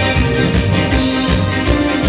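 Loud music with a steady beat and sustained melody notes, in the style of dance music played at a family party.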